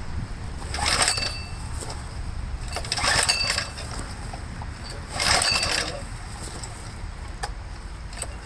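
Recoil starter rope of a small engine pulled three times, about every two and a half seconds, each pull a short whirring rattle. The engine cranks with the choke on but does not start.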